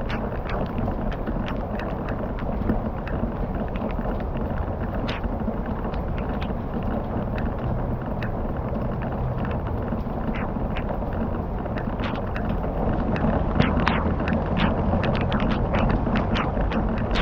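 Wood fire crackling: irregular sharp pops and snaps over a steady rushing noise, busier and louder near the end.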